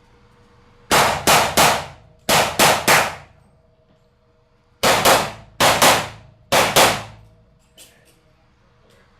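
Rapid pistol fire from a Smith & Wesson M&P .40 VTAC, about a dozen shots. Two quick strings of three come first, then after a pause of nearly two seconds three quick pairs.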